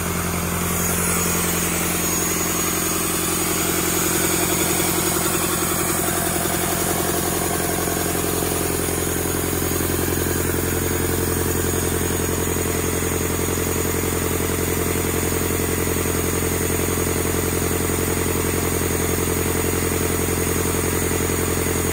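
Rebuilt Doosan D34P four-cylinder diesel engine running steadily on a test stand during its post-rebuild test run.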